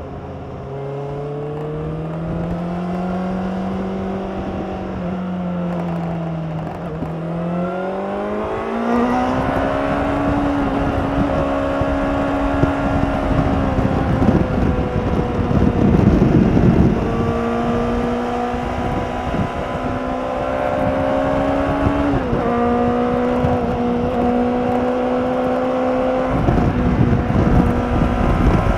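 Honda CBR600RR's inline-four engine through its stock exhaust, pulling up through the revs about a third of the way in and then holding high revs while riding, with a brief dip in pitch near the last quarter. Wind rushes over the microphone at times.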